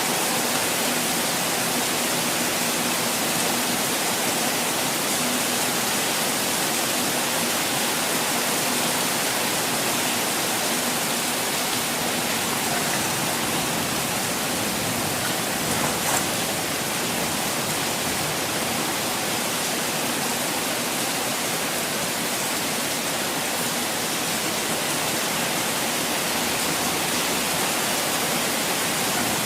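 Falling water rushing steadily, an even hiss with no let-up, broken only by one brief click about halfway through.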